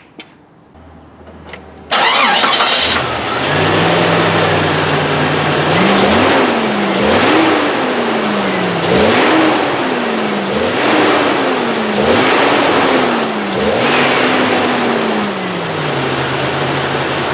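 1996 Jeep Cherokee Sport's engine cranked and starting about two seconds in, idling, then revved up and down about six times before settling back to idle. It is being test-run on a freshly fitted serpentine belt with the engine fan removed.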